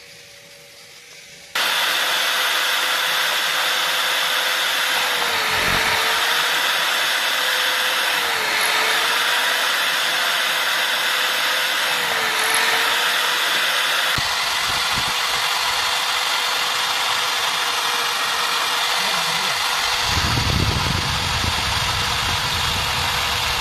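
Electric drill mounted in a bench drill stand, switched on about a second and a half in and running steadily with a high motor whine. Its pitch dips briefly three times under load as the bit bores into wooden sticks.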